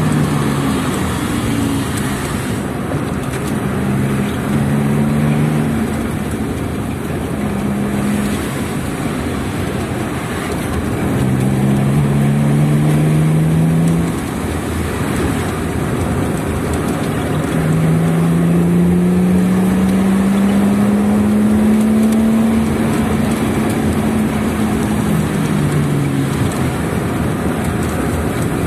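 Car engine and tyre noise heard from inside the cabin on a winding descent. The engine pitch rises and falls in short spurts through the bends, then climbs steadily for several seconds about two-thirds of the way through as the car accelerates.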